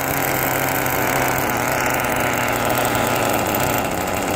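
Small two-stroke nitro glow engine of a Kyosho FW06 RC touring car idling steadily with a high buzzing rasp, held off the ground while its carburettor idle is being set up.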